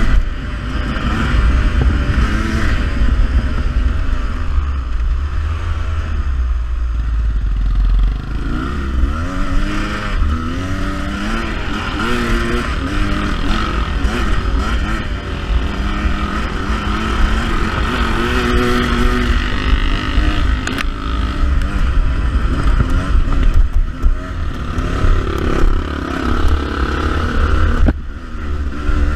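Beta 300RR two-stroke dirt bike engine under way on a trail ride, its pitch rising and falling over and over with the throttle. There is heavy wind rumble on the microphone, strongest in the first several seconds.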